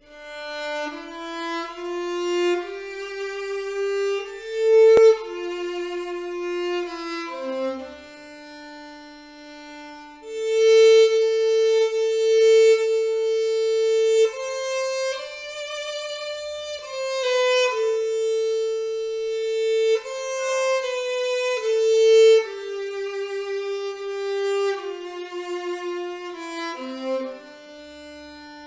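Solo violin playing a slow folk melody, one line of long held notes with no accompaniment.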